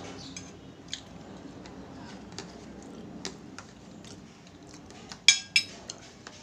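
Spoon and fork clinking and scraping on a ceramic plate while rice is eaten, with scattered light ticks and a sharper double clink about five seconds in.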